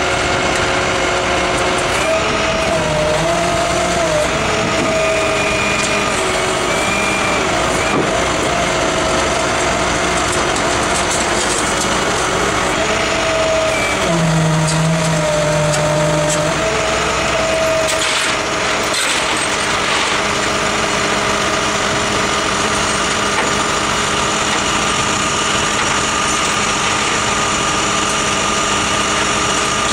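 Flatbed tow truck's engine and hydraulic winch running steadily as a van is pulled up the tilted bed, with a faint whine that wavers slightly in pitch.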